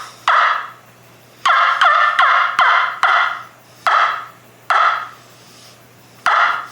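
A homemade three-piece turkey wingbone call played in a series of about nine short yelping notes. Each note starts sharply and fades over about half a second, with several coming in quick succession in the middle.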